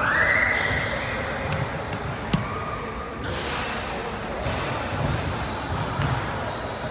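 Basketball sounds in a gym: a ball bouncing on the hardwood court and voices echoing in the hall, with one sharp knock about two seconds in.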